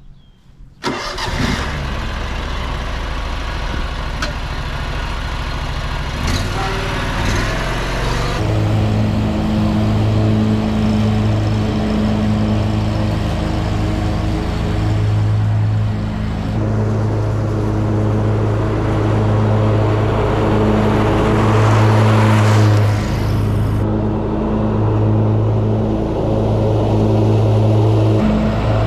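Lawn mower engine running steadily while mowing. It cuts in abruptly about a second in.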